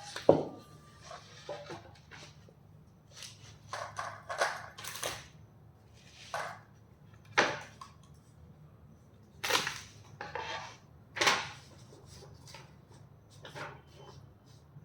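Shelf parts being handled and fitted together during assembly: irregular knocks, clicks and short scrapes, the loudest a sharp knock right at the start.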